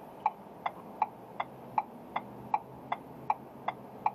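A car's indicator relay clicking inside the cabin: a steady, even tick about two and a half times a second, over faint low cabin noise.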